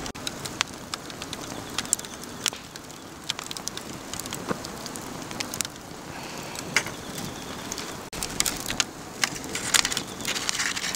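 Swedish torch log fire crackling, with scattered sharp pops over a steady hiss of burning. Near the end, aluminium foil crinkles as it is pressed down over a pan.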